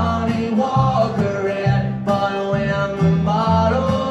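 Acoustic string band playing live: bowed fiddle melody over strummed acoustic guitar and plucked upright bass, in an instrumental stretch between sung lines.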